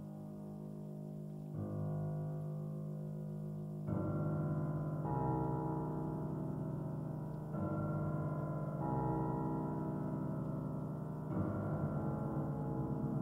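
Slow instrumental music of sustained keyboard chords, moving to a new chord every few seconds.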